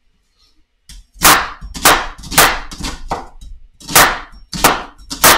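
Kitchen knife chopping an onion on a wooden cutting board: a run of sharp knocks, about seven of them, starting about a second in and coming roughly one or two a second.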